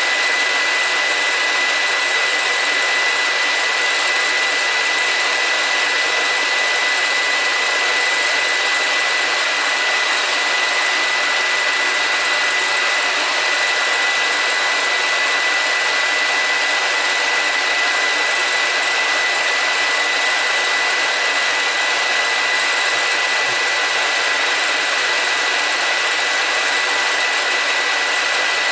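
Movie projector running: a steady mechanical whir and hiss with a thin, constant high whine.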